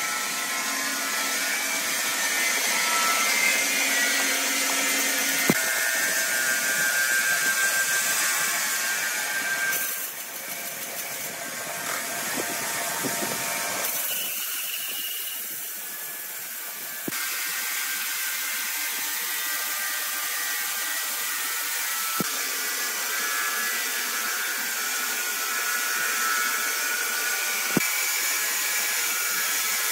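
Large horizontal band sawmill running and cutting through a log of red hardwood: a steady high whine and hiss from the blade, with a few sharp clicks. The sound dips and changes for a few seconds near the middle.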